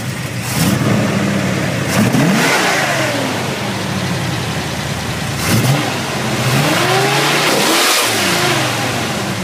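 Big V8 engine revved several times, its pitch climbing and falling back each time, with quick blips about two seconds and five and a half seconds in and a longer climb near the end.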